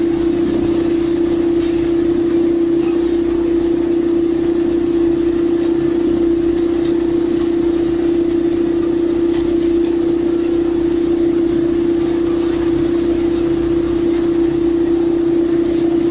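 Heavy construction machinery running steadily: one strong unbroken hum held at a constant pitch, with engine rumble beneath it.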